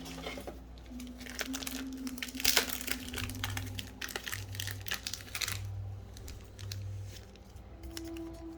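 Crinkling and rustling of thin plastic card packaging being handled, a dense run of crackles that thins out after about five and a half seconds.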